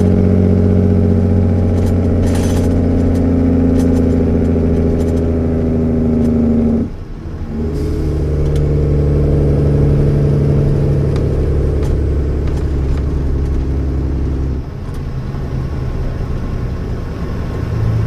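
1993 Mack CH truck's straight-piped 470 hp Mack E7 diesel pulling as the truck drives, heard from inside the cab. The engine pitch climbs, cuts out sharply for a moment about seven seconds in, then climbs again. About fifteen seconds in it drops to a lower, quieter running.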